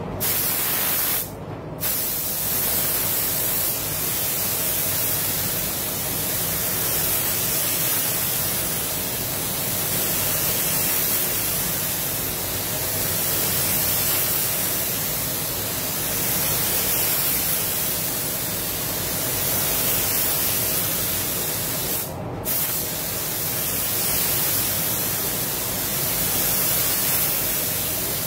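Compressed-air spray gun hissing steadily as clear coat is sprayed onto a car's panels, with the trigger let go briefly about a second and a half in and again near the end, under a low steady hum of the booth's ventilation.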